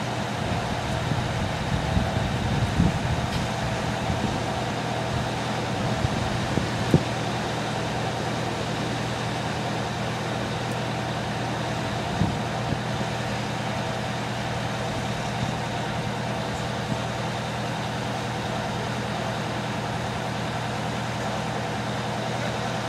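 Fire truck engine idling steadily, with a few sharp knocks in the first seven seconds and one more around twelve seconds in.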